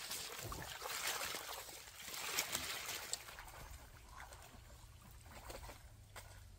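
Water trickling and sloshing, fading after about three seconds to a fainter hiss with scattered small clicks.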